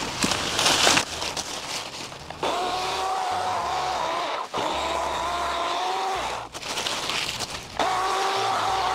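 Craftsman 14-inch 8-amp corded electric chainsaw's motor running in three bursts with a steady whine, cutting through a leafy plant clump, the audio sped up to double speed. Before the first burst, about two seconds of rustling.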